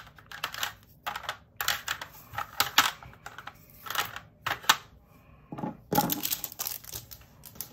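Small clear plastic drill-storage containers clicking and knocking together as they are handled and set into a plastic storage tray, with rustling of small plastic bags of round resin diamond-painting drills. The clicks come at an uneven pace.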